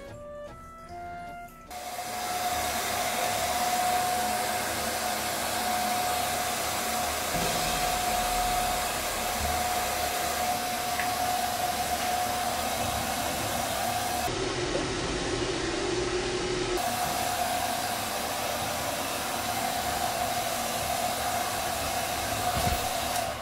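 Handheld hair dryer blowing steadily on a freshly bathed cat's wet fur, a loud rushing air noise with a steady whine. The whine drops lower for a couple of seconds about midway, then returns.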